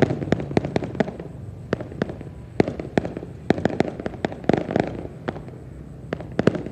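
Aerial fireworks display going off: a rapid, irregular string of sharp bangs and pops, several a second. The loudest bang comes right at the start, and a dense cluster comes about halfway through.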